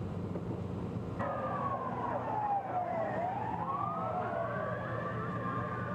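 Emergency vehicle siren wailing, cutting in abruptly about a second in, its pitch falling, then rising and levelling out, over a steady low vehicle engine hum.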